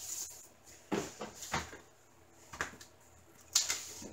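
Handling noise from a stiff white mat board and a diamond painting canvas being shifted on a tabletop: about five short rustles and scrapes, the last one, near the end, the loudest.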